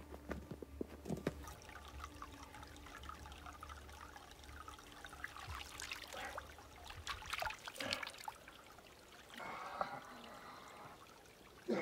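Water trickling in a small stream, with scattered clicks and knocks over stones.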